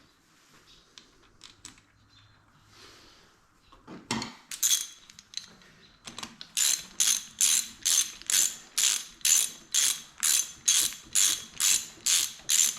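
Hand ratchet wrench being worked back and forth to run down a bolt: a couple of clicks about four seconds in, then a steady ratcheting rhythm of about two and a half strokes a second from about six seconds in.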